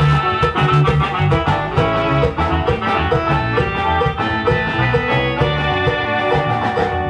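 Latin dance music from a live band with guitar and drums, played loud through a PA sound system with a steady beat and a heavy bass line.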